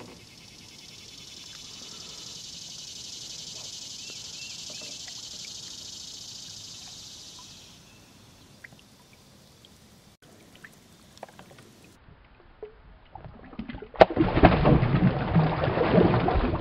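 A hand splashing in river water, loud and splashy, starting a couple of seconds before the end. Before it, a steady high-pitched hiss fades out about halfway through, followed by a few faint clicks.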